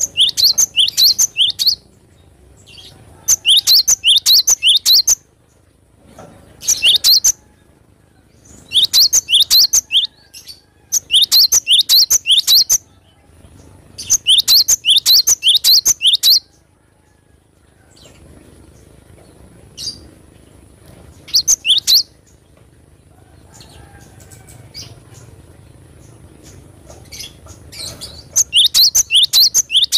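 Cinereous tit (gelatik batu) singing: about eight bursts of rapid, sharp, high repeated notes, each lasting a second or two, with a longer pause in the second half.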